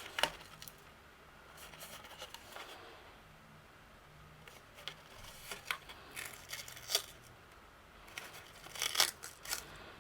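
Cardstock box and ribbon being handled and pressed down by hand: scattered faint rustles and light taps, with small clusters about a second in, in the middle and near the end.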